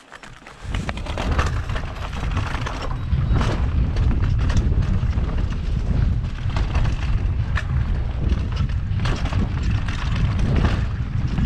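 Mountain bike descending a dirt singletrack at speed: wind buffeting the camera microphone and tyres rolling over dirt, with frequent knocks and rattles as the bike rides over roots and rocks. The noise comes up sharply under a second in, as the rider sets off.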